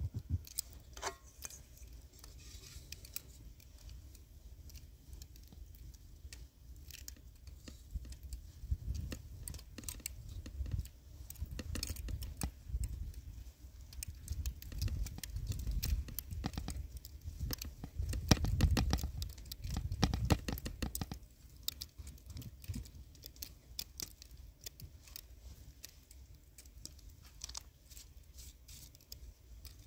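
Hands scooping and packing snow into a metal kettle: repeated crisp crunching and scraping of snow. Low rumbling gusts of wind on the microphone come and go through the middle, loudest about two-thirds of the way through.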